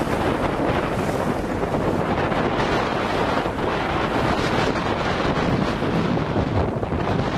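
Strong wind of about 25–30 knots buffeting the microphone in a steady rumbling roar, with choppy water rushing and splashing beneath it.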